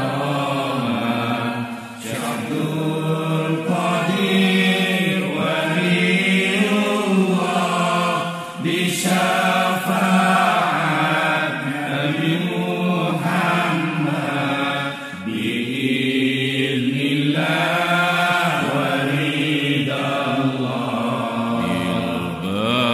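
Islamic devotional chant, sung by voice in long, drawn-out melodic phrases. There are brief breaks between phrases about 2, 8 and 15 seconds in.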